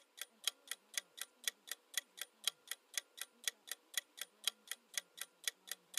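Clock-style ticking sound effect of a quiz countdown timer, about four sharp ticks a second with every other tick louder.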